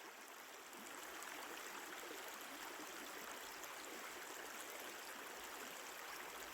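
Steady rush of a river flowing, an even watery noise with no breaks.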